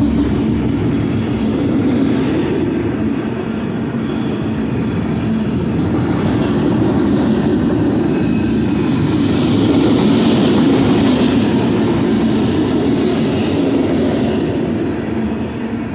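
Freight cars of a grain train rolling past close by: a steady rumble of steel wheels on the rails, with a brighter hissing, screeching edge coming and going in stretches, loudest about ten seconds in.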